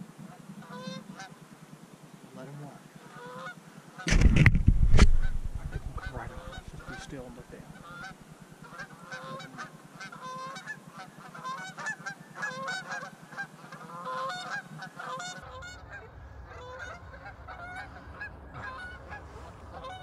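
A flock of Canada geese honking and clucking repeatedly as they fly in over decoys, with many overlapping short calls throughout. A loud, noisy burst of about a second breaks in about four seconds in.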